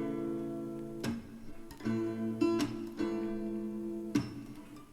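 Background music: acoustic guitar strumming sustained chords, about one strum a second, between sung lines of a pop song.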